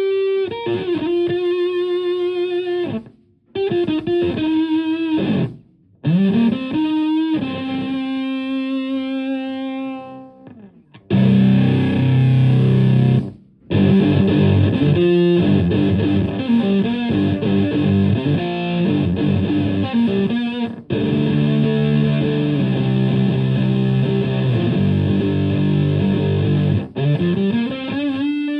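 Electric guitar (a Stratocaster) through a germanium three-transistor fuzz pedal modelled on the Tone Bender MKII, into a Marshall Plexi amp. Sustained single-note lead lines with string bends rising into held notes, then about a third of the way in, thicker fuzzed chords and riffs with a heavy low end, broken by short pauses; near the end a note is bent up and held.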